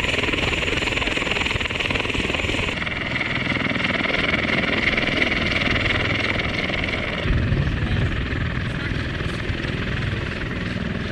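Marine Corps CH-53E Super Stallion heavy-lift helicopter running: a steady rotor and three-turboshaft-engine noise with a high turbine whine. The mix changes abruptly twice, about three and seven seconds in, the last part with a heavier low rumble.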